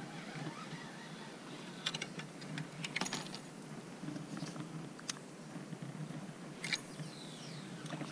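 Light, scattered clicks and ticks from a baitcasting reel being handled, with a small cluster about two to three seconds in and a few single clicks after.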